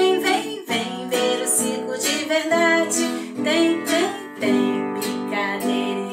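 A song with strummed acoustic guitar and a voice singing a cheerful circus tune.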